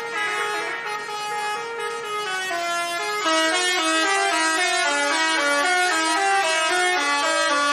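A bus's 'telolet basuri' melody horn playing a tune of stepped notes. About three seconds in it gets louder and the notes come quicker.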